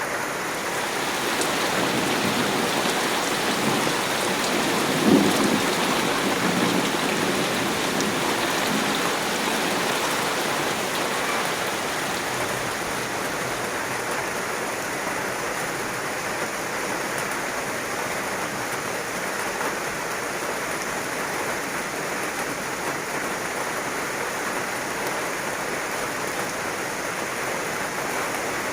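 Heavy rain falling steadily, swelling for the first several seconds and then easing to an even pour, with a low rumble of thunder about five seconds in.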